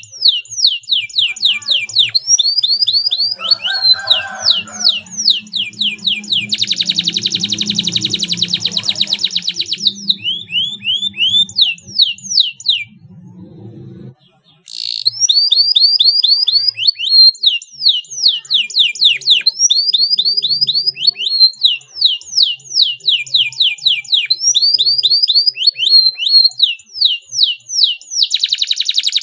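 Domestic canary singing: quick series of short, sliding whistled notes, broken by a tight, fast roll about seven seconds in and another near the end. The song stops briefly about halfway through, then starts again.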